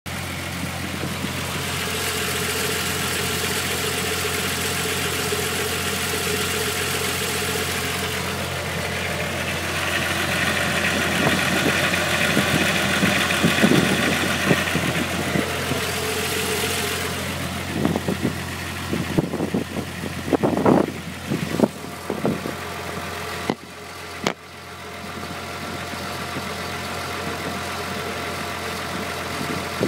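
VW Mk3 VR6 narrow-angle six-cylinder engine running at idle with an unidentified rattle, the mystery noise being investigated. Several sharp, irregular knocks come in the second half, and the sound briefly drops away about two-thirds through.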